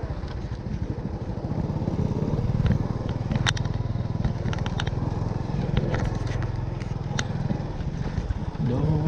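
Small motorcycle engine running steadily at low speed, with scattered clicks and knocks as the bike rides along a bumpy dirt track.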